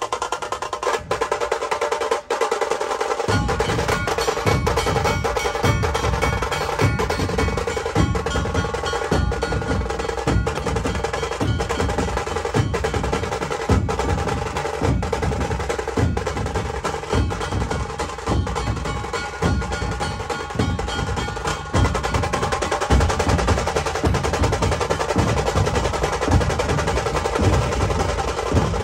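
Percussion-heavy music: fast, rhythmic drumming over a steady held tone, with deep bass beats joining about three seconds in.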